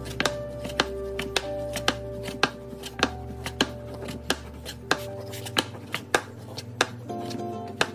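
A small wooden rolling pin rolling out dough wrappers on a wooden board, knocking against the board about twice a second, with background music.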